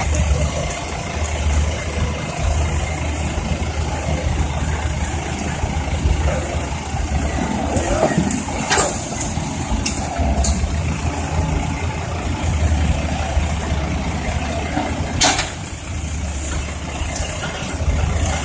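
Heavy diesel machinery running steadily as a tracked excavator loads soil into a dump truck, with two sharp clanks about nine and fifteen seconds in.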